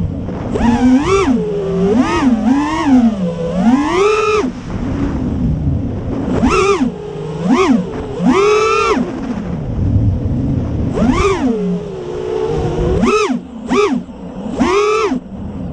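Brushless motors of an FPV racing quadcopter whining, their pitch rising and falling sharply over and over as the throttle is punched and chopped, with a low rumble of wind buffeting underneath.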